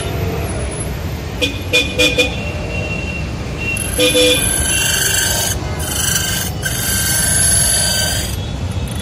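Roadside traffic rumble with vehicle horns: several short toots in the first half, then a steadier high-pitched sound with hiss that holds for about four seconds before stopping.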